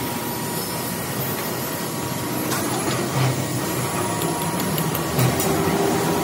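Hand chain hoist lifting a large cast-steel gear: a few metallic chain clinks and knocks over a steady mechanical noise of workshop machinery.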